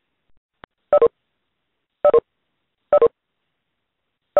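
Short electronic beeps from a conference call, in pairs that step down in pitch, heard three times about a second apart with a fourth just starting. They are the tones of callers dropping off the line as the meeting ends.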